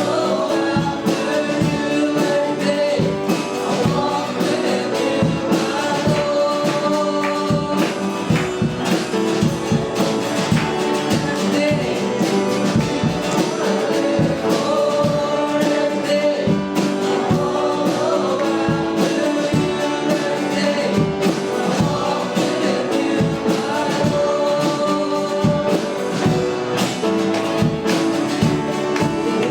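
Church worship music: voices singing a gospel song over instrumental accompaniment with a steady beat.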